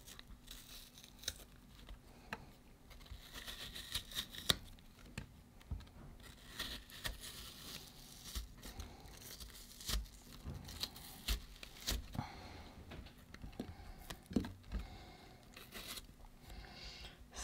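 Knife cutting around a hole in a soft apple: faint, irregular scraping and tearing of the flesh with small clicks and knocks scattered throughout.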